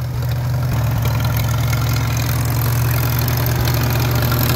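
1944 Farmall A tractor's four-cylinder engine running steadily as the tractor is driven slowly in low gear.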